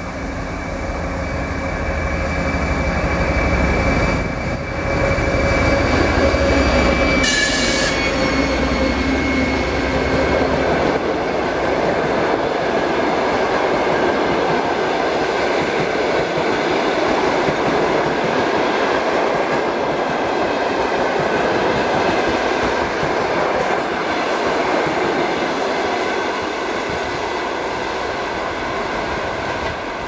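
Diesel locomotive hauling a passenger train passes close by. Its engine drones low for the first ten seconds or so, then the passenger coaches roll past with steady wheel-on-rail noise, which eases slightly near the end as the train moves away.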